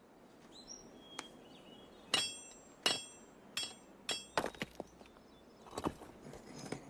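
Hand tool striking rock: a string of about eight sharp, ringing metallic clinks, irregularly spaced, starting about two seconds in.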